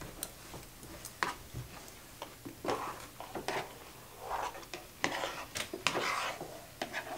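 Forks and spoons clicking and scraping against plates as several people eat, in scattered short clicks and brief scrapes.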